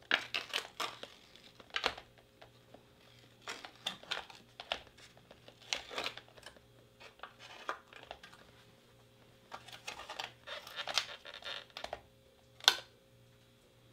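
Foil lid being peeled off an aluminium ration meal tray, then the loose foil crinkling and crumpling in the hands in irregular bursts. A single sharp tap near the end is the loudest sound.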